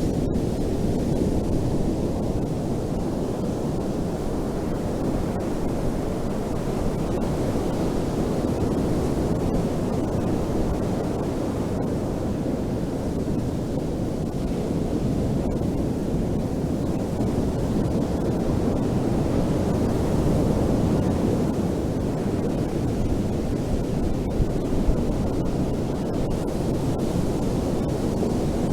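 Ocean waves washing on a beach: a steady, low-pitched rushing noise with gentle swells in level and no distinct breaks.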